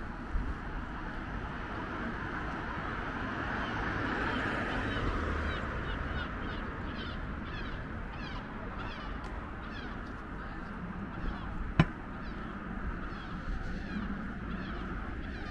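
City road traffic giving a steady hum. From about five seconds in, a short falling call repeats about twice a second, and there is a single sharp knock near the twelve-second mark.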